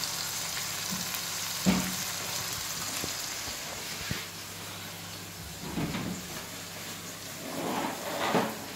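Fish and tomato-onion masala sizzling steadily as it fries in a frying pan on a gas stove, with a few knocks and short clatters of cooking things.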